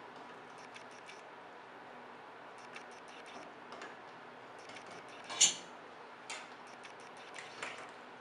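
Cooking utensils tapping and clicking lightly, with one sharp, much louder clink about five seconds in, over a steady faint hum.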